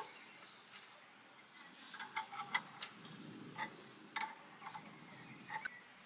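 Faint, irregular small clicks of an adjustable spanner on a brass barbed fitting as it is tightened a little past hand tight.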